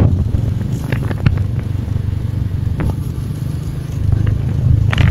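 Motorcycle riding along the road: a steady low rumble of engine and wind on the microphone, with a few sharp clicks, growing louder again near the end.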